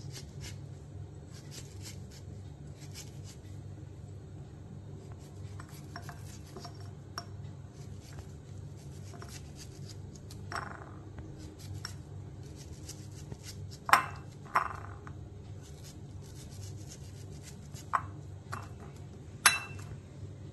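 Kitchen knife cutting through a half-ripe mango held in the hand, with soft clicks of diced pieces dropping into a ceramic bowl and a few sharper clinks in the second half, over a steady low hum.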